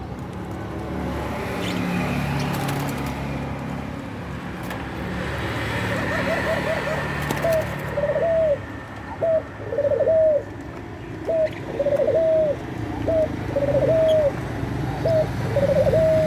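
Puter pelung (ringneck dove) cooing in breeding mood, wanting to mate. The coos start about halfway through as a quick run of small notes, then come as short arched coos about once a second, and the last coo is drawn out into a falling note.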